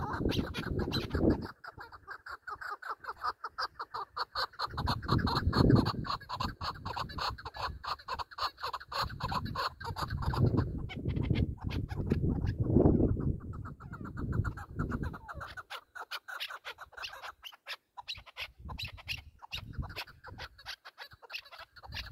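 Chukar partridge calling in long, fast runs of clucking notes, with brief pauses at about 11 s and 16 s. Low rumbles come and go underneath.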